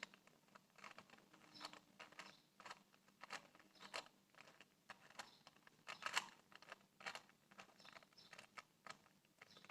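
Faint, irregular clicking and clacking of a 2x2 Rubik's Cube's plastic layers being turned by hand, over a dozen small clicks spread through the stretch.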